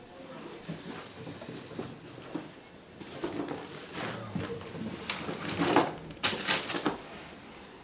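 Cloth rustling and small handling noises as clothes and things on a desk are moved about, with several louder rustles in the second half.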